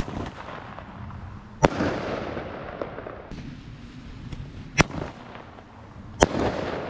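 Small bomb-tube firework firing two shots: each leaves the tube with a sharp bang and a shower of sparks, then bursts in the sky with another loud bang about a second and a half later, the burst trailing off over about a second. Four bangs in all.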